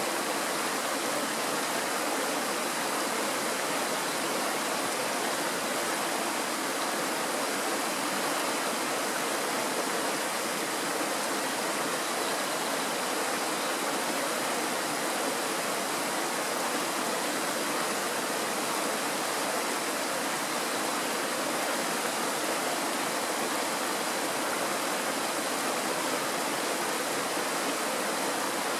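Mountain stream rushing over a shallow riffle of stones: a steady, even rush of water with no change.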